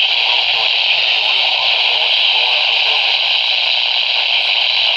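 Steady radio static: a loud, even hiss from a radio on a weak signal, with faint wavering traces underneath.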